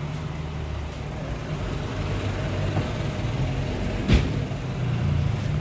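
Steady low rumble of a motor vehicle engine running, with a single sharp knock about four seconds in.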